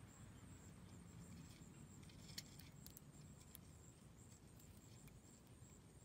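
Near silence: faint outdoor ambience with a steady low rumble and a thin high hiss, broken by a few soft ticks between about two and three and a half seconds in.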